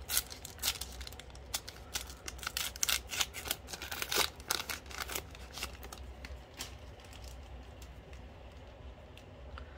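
A trading-card flow pack's foil wrapper crinkling and tearing as it is opened: a dense run of sharp crackles for about the first five seconds, then quieter handling.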